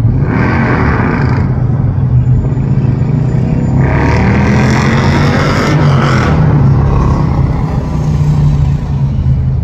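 City street traffic noise over a steady low hum. A vehicle passes about four to six seconds in.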